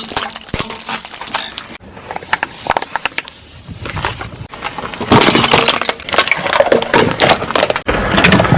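Brittle objects crunching and cracking as they are crushed, in a dense run of sharp cracks and crackles that gets louder and busier about five seconds in.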